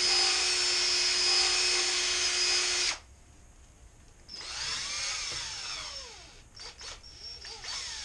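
Cordless drill spinning a mixing paddle in a can of Flex Seal liquid rubber. It runs steadily and stops suddenly about three seconds in. After a short pause it gives a longer burst whose whine rises and falls, then a few short trigger pulses that wind down.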